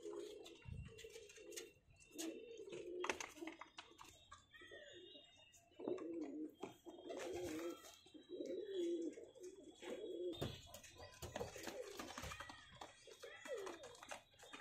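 Domestic pigeons cooing: a run of low, warbling coos one after another, with a few light clicks and taps in between.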